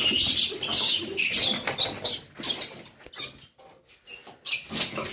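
A rat squealing over and over in high, shrill bursts while a puppy grapples with it, with short scuffling knocks against the concrete floor.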